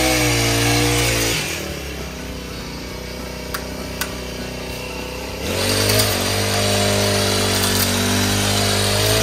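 Petrol pole hedge trimmer's small pull-start engine at high revs, dropping to idle for about four seconds, then revved up again and held. Two light clicks come during the idle.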